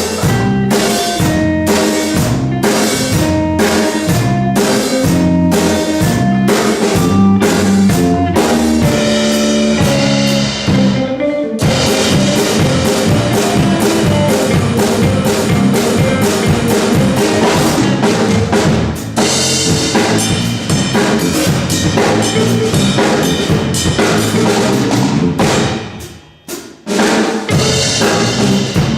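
Live funk played by a trio of electric guitar, electric bass and drum kit. For about the first eleven seconds the band plays short, evenly spaced stabs with gaps between them. It then breaks into a dense, continuous groove, which drops out briefly near the end before coming back in.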